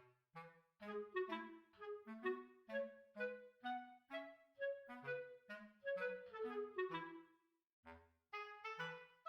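Background music: a bouncy tune of short, quick notes over a bass line, with a brief pause near the end.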